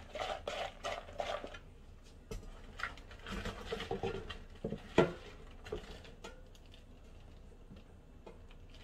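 Broccoli and carrot pieces being tossed by hand in a plastic container, then tipped out into an air fryer basket lined with plastic wrap: a quick soft patter at first, then scattered ticks and knocks, the loudest about five seconds in, as the container is upended and the pieces drop into the basket.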